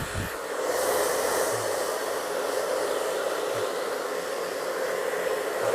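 Small handheld hair dryer running steadily: an even rushing blow with a constant hum.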